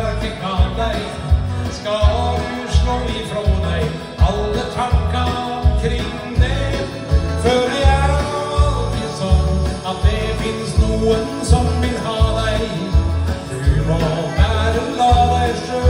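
A man singing a song into a handheld microphone over a backing track, with a steady deep beat about twice a second under the voice.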